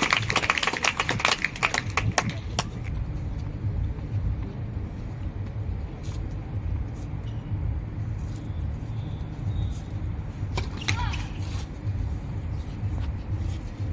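Crowd applause that fades out in the first two seconds or so, then a steady outdoor rumble with a few sharp tennis-ball strikes as a rally begins and a short vocal sound near the two-thirds mark.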